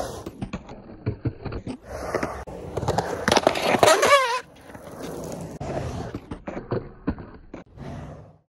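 Skateboard with Alva 101A conical urethane wheels and Independent 169 trucks rolling and carving on concrete, with repeated clacks and knocks of the board and trucks. A loud wavering high sound rises and falls about three to four seconds in and stops suddenly. The sound cuts off just before the end.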